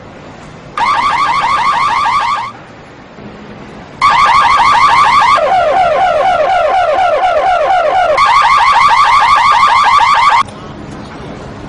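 Car alarm siren going off in two spells. The first is a short run of rapid high warbling chirps; after a brief gap a longer run switches partway through to a lower, faster warble, then back to the high chirps, before cutting off suddenly near the end.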